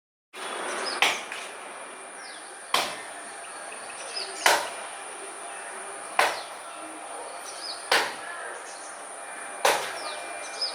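Sharp knocks repeating at a steady pace, about one every 1.7 seconds, each with a short ring. Beneath them runs a steady high-pitched insect drone, with a few faint chirps.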